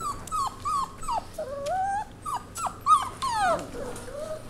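Labrador-mix puppies whining: a string of short, high, falling whimpers, with one longer wavering whine about a second and a half in and a lower drawn-out whine near the end.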